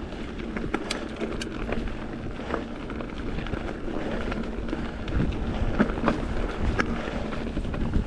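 Mountain bike rolling over a rocky dirt trail: steady tyre crunch with scattered rattling clicks, busier and louder from about five seconds in, and wind on the microphone.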